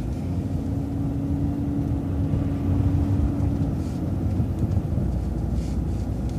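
Transit bus driving along a street, heard on board: a steady low rumble of engine and road noise, with a steady hum over it for about the first three and a half seconds.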